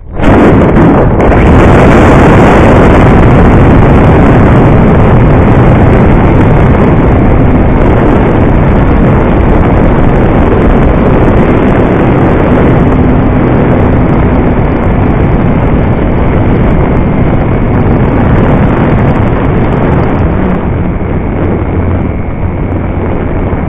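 Parkzone Radian's electric motor and propeller running at full power, heard from a camera on the plane's nose and buried in heavy wind rush on the microphone. It starts abruptly as the glider is thrown into the air.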